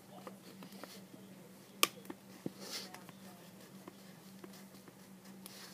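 Handling of a drawing pen and paper on a table: small clicks and taps, one sharp click about two seconds in, and a brief scratch of drawing on paper just under three seconds in, over a steady low hum.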